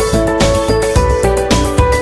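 Background music: a steady beat of about two strikes a second under a melody of held, stepping notes.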